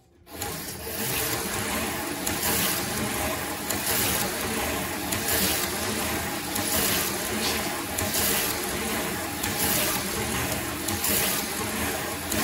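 Electric slot cars running laps around a plastic track: a steady whir of small electric motors and a rattle of the cars in the track slot, swelling about once a second as a car passes close by.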